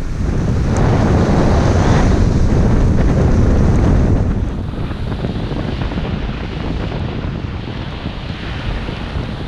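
Wind buffeting a head-mounted GoPro 5's microphone during a downhill ski run, a loud rumbling rush with the hiss of skis on snow. It swells about half a second in and eases a little after about four seconds.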